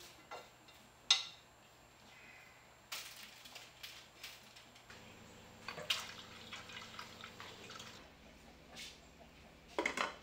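Quiet kitchen handling sounds: a sharp click about a second in, then tap water running and dripping into an enamel pot, and a cluster of knocks near the end as the pot's lid is set on.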